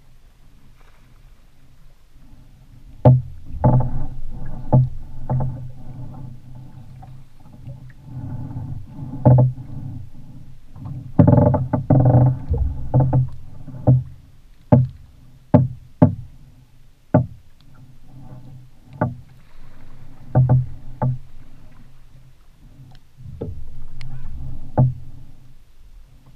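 Water slapping against the hull of a flats skiff: irregular hollow knocks, about one a second, over a steady low rumble.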